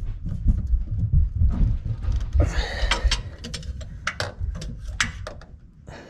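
Channel-lock pliers gripping and wrenching an over-tightened spin-on oil filter: low bumping and handling thumps in the first half, a short scraping rasp, then a run of sharp metal clicks and knocks as the jaws slip and bite on the filter can.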